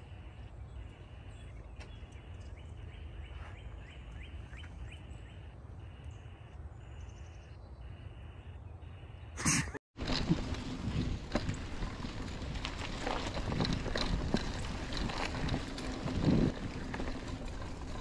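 Wind on the microphone with a few faint clicks. After a cut about ten seconds in, a mountain bike rolling over a dirt trail: steady tyre and wind noise with frequent rattles and knocks from the bike.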